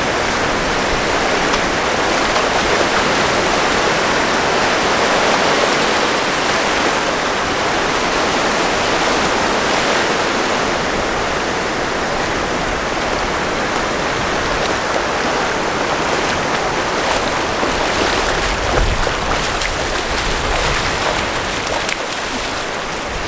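Ocean surf breaking and washing over the shallows of a sandy beach: a steady, loud rush of water.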